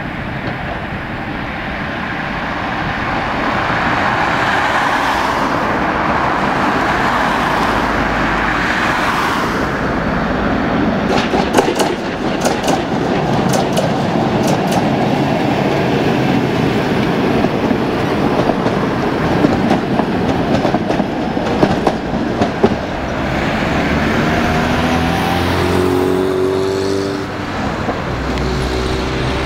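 Two-car Tatra tram passing on street track: steel wheels rumble on the rails and click sharply over rail joints a little over ten seconds in. Near the end a motor whine rises in pitch.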